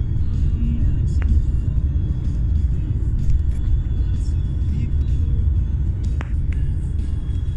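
Steady low rumble of a moving car heard from inside the cabin, with music playing along underneath.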